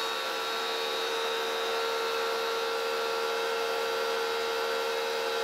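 Wholesun 3000 PSI electric pressure washer running under load, its motor and pump giving a steady whine over the hiss of water spraying through the gun's soap-dispenser foam bottle. It cuts off suddenly at the very end as the trigger is released.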